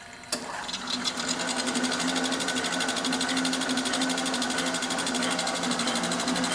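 EWAG RS2 radius and tangent grinder's grinding-wheel spindle motor switched on with a click, spinning up over about a second and then running steadily with a hum and a fast, even mechanical whir.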